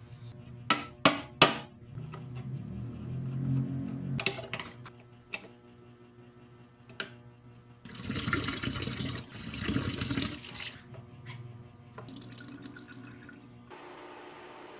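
Kitchen tap running into a sink for about three seconds, starting around eight seconds in, after three sharp knocks about a second in and a few lighter clicks. Soft piano music plays underneath.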